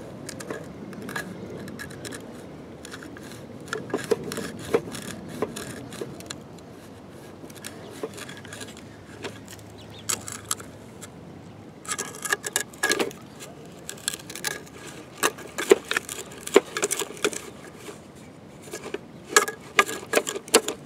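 A plastic toy excavator bucket scraping and scooping sand and tipping it into a plastic toy dump truck's bed: irregular light scrapes and clicks of plastic with sand pouring, getting busier about halfway through.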